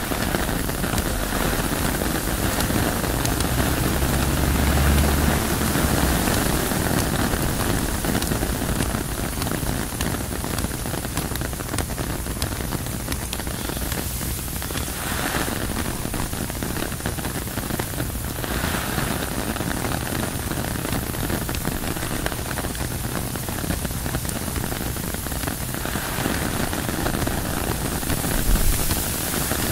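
Steady rain falling on tent fabric, with wind. A deep low rumble swells a few seconds in, and there is a brief low thump near the end.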